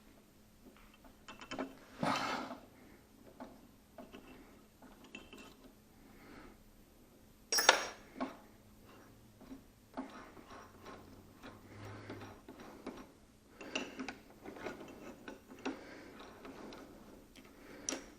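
Scattered metallic clicks, ticks and knocks of a bit being fitted and tightened in a Sears Craftsman drill press chuck. One sharp click about seven and a half seconds in is louder than the rest.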